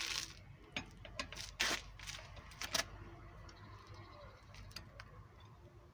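Metal wrench being worked at a car wheel: a few sharp metallic clicks and two short rasps in the first three seconds, then fainter ticks.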